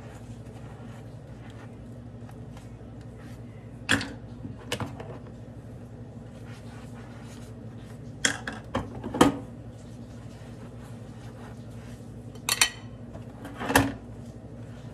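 Dishes and utensils clinking and knocking against each other and the stainless steel sink during hand washing: a few sharp clinks scattered through, the loudest about nine seconds in, over a steady low hum.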